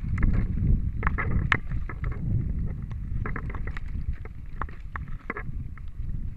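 Scott Spark 10 mountain bike rolling fast over a dirt trail: a steady low rumble of tyres and wind buffeting the camera microphone, with irregular sharp clicks and short rattles from the bike's chain and frame as it runs over bumps.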